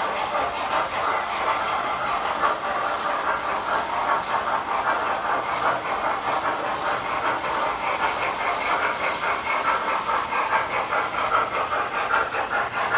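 Model trains running on the layout's track: a steady rattling clatter of wheels rolling over the rails, full of quick fine ticks.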